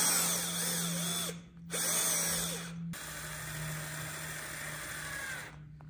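Festool cordless drill-driver driving screws that fix the butt pad onto a shotgun stock's recoil system. It runs twice for about a second each, then for about two and a half seconds at a slightly lower pitch and more quietly.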